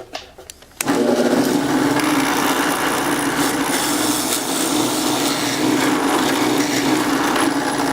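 Power drill boring a hole into wood for an insert nut, running steadily at full speed for about seven seconds after a few clicks, then cutting off abruptly.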